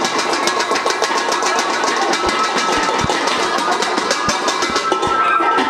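Stainless steel pot lids banged rapidly against a wall, a dense, loud metallic clanging of many overlapping strikes with ringing.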